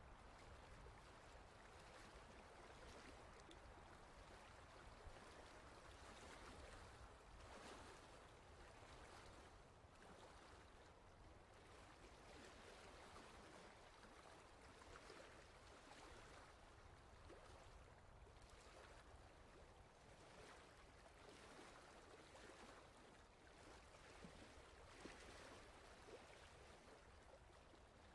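Faint, steady rushing noise like flowing water, with small swells in level and no distinct events.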